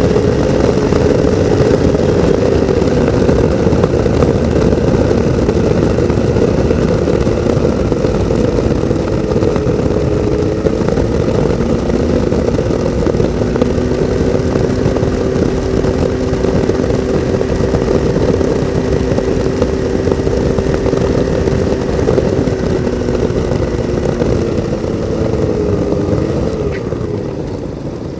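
Ultralight's two-stroke engine and propeller droning at low power on final approach for landing, over a steady rush of wind. Near the end the pitch and level drop as the throttle comes back toward idle.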